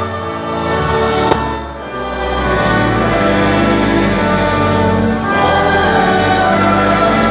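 Choir and congregation singing a hymn with instrumental accompaniment in a large, reverberant church. A single sharp click sounds about a second in.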